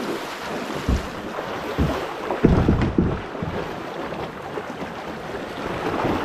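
Shallow creek water rushing over rocks, a steady hiss, with a few dull low thumps: one about a second in and a cluster around two and a half to three seconds in.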